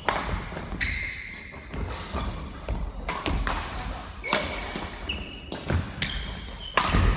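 Badminton doubles rally on a wooden court: several sharp racket hits on the shuttlecock, the loudest near the end, between short shoe squeaks and footfalls on the floorboards.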